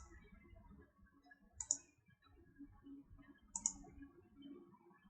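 Computer mouse clicking: short, sharp clicks in quick pairs about every two seconds, over faint room noise.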